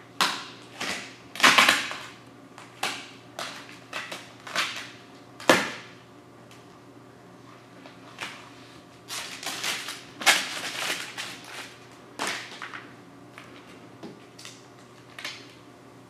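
Household scissors snipping through vinyl wrap film, with the loose film crinkling as it is handled: about a dozen short, irregular crackling snips, the loudest about one and a half and five and a half seconds in.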